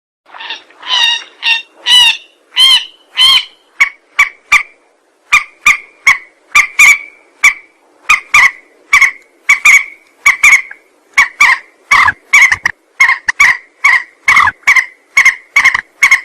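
Mandar (rail) lure call: a long series of short, loud, harsh notes, a few higher-pitched ones at first and then about two to three a second, coming faster toward the end.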